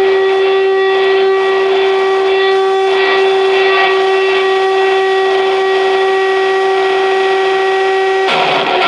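Live noise electronics played loud through amplifiers: one steady held tone with overtones over a hissing noise bed. About eight seconds in, it breaks abruptly into a denser, harsher wash of noise.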